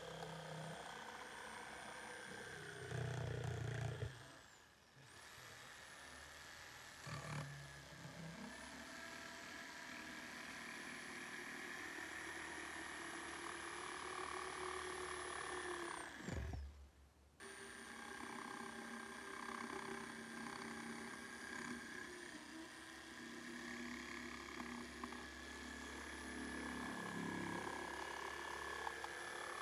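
Electric jigsaw cutting through a wooden board, the motor running with a steady high whine. It stops twice, the second time winding down with a falling whine about halfway through, then starts up and cuts again.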